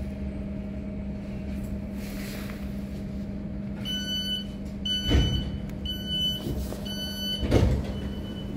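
Inside a passenger train at a station platform: a steady low electrical hum, then a train door warning sounding as four evenly spaced high beeps about a second apart, with a fainter fifth, and two heavy thuds, one about midway and one near the end.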